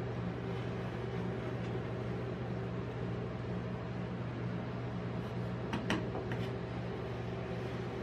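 Steady hum of a rolled-ice-cream machine's refrigerated cold plate, with a steel spatula scraping frozen ice cream into rolls on the steel pan; a few short sharp scrapes about six seconds in.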